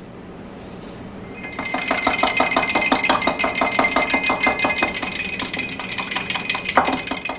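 Wire whisk beating lime juice, oil and salt in a glass measuring cup, its wires clinking rapidly against the glass. The whisking starts about a second and a half in and stops just before the end.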